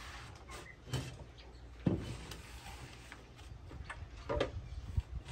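Things being handled and set down, a few separate light knocks and clicks, the loudest a dull knock about two seconds in.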